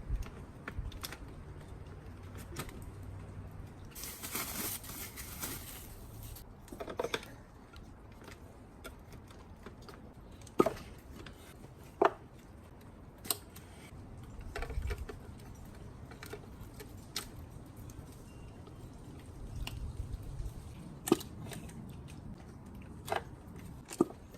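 Scattered clicks, knocks and rustles of parts and tools being handled, with a short hissing rustle about four seconds in. No engine is running.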